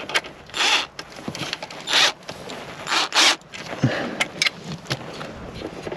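Short rasping bursts, about four of them, as a socket on a drill attachment runs the radio amplifier's fixing bolts down tight under the seat.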